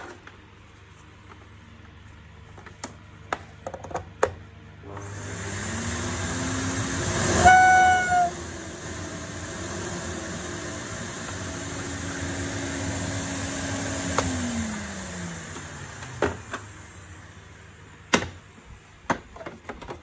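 Electrolux Cyclone XL canister vacuum cleaner (ZCX6400FF) motor spinning up, with a rising hum and rushing air and a brief high whistle at its loudest point. It then runs steadily before winding down with a falling hum. A few plastic clicks and knocks from handling the casing come before the start and after it stops.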